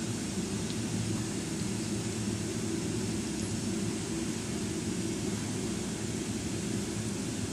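Steady low hum with an even hiss over it, unchanging throughout: background machine or ventilation noise.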